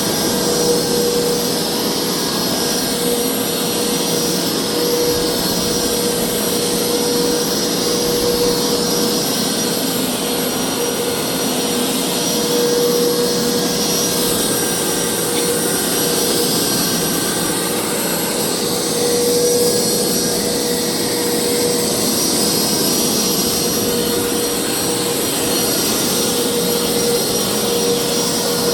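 Hoover carpet cleaner running steadily, its motor giving a constant whine over a loud rushing noise, with small swells in loudness.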